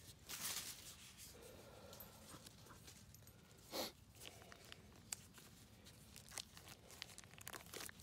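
Knife cutting into the plastic wrapping of a whole raw chicken, with faint bursts of plastic tearing and crinkling, about half a second in and again just before four seconds, and small clicks and rustles in between.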